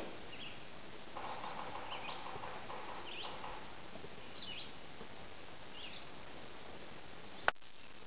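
Wild birds chirping in spring woods: short, separate chirps every second or so over a steady background hiss. A single sharp click sounds about seven and a half seconds in.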